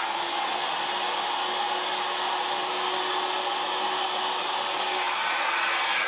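Electric air-moving motor of a detailing machine running steadily: an even rush of air with a steady hum underneath.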